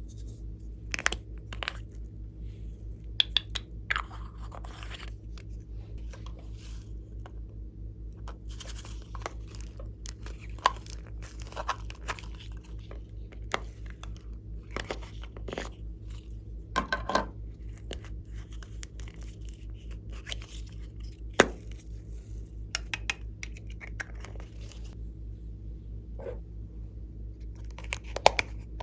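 Glossy slime being squished and kneaded by hand, giving scattered sticky clicks and crackles over a steady low hum.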